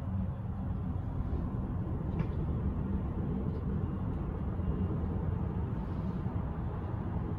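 Steady low rumble inside a moving cable car gondola as it travels along its haul rope, with a faint high tick now and then.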